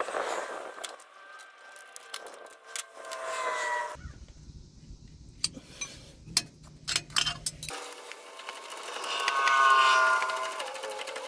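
Metal hand tools clicking against the rocker-arm adjusters of a John Deere 4045 diesel during a valve adjustment, mixed with whines that rise in pitch: a short one about three seconds in and a louder one near the end.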